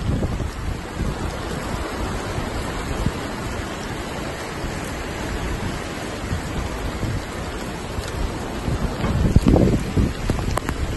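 Wind buffeting the phone's microphone with a steady rushing noise, gusting louder about nine seconds in.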